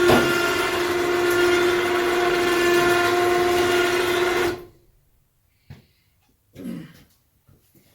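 Electric ATV winch motor running hard under load, a loud steady whine with a rough mechanical noise, cutting off suddenly about four and a half seconds in.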